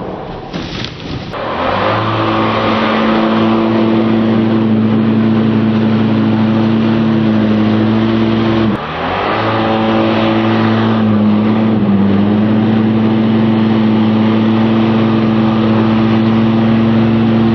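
Ski-Doo snowmobile engine running at a steady, held speed through its exhaust, dipping and picking back up about a second in and briefly dropping again about nine seconds in.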